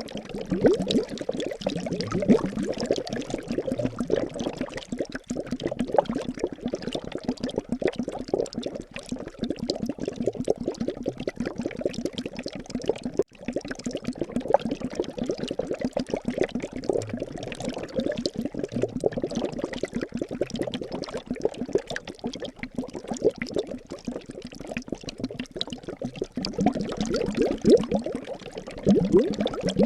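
Liquid bubbling and gurgling steadily in a dense, rapid stream of small bubbles, like a simmering brew.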